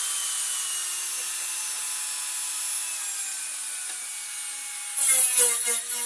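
Dremel rotary tool with a small sanding disc, its motor a steady whine that slowly falls in pitch. About five seconds in, the disc bites into the edge of a cut-out in a plastic enclosure with a loud, harsh grinding, sanding off the burrs.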